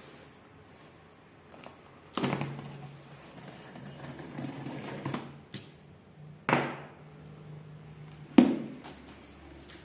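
Three sudden knocks, about two seconds in, six and a half seconds in and eight and a half seconds in, each with a short fading ring, over a faint low hum.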